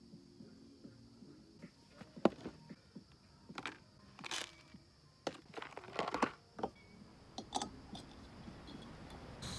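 Handling noises: a scattered run of irregular clicks, cracks and short crunchy rustles, over a faint steady high hum.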